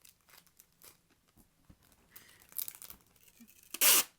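Wrapping materials rustling and crinkling, then one short loud rip near the end.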